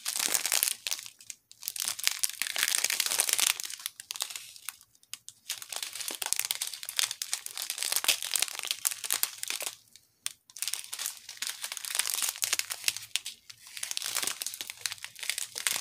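Small clear plastic bags of diamond-painting resin drills crinkling as they are handled, in spells broken by short pauses about a second and a half, five and ten seconds in.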